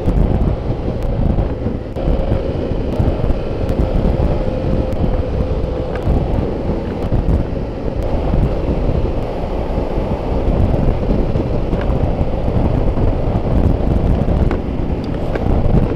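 Loud wind buffeting the microphone of a moving motorcycle at road speed, with the motorcycle's engine running underneath.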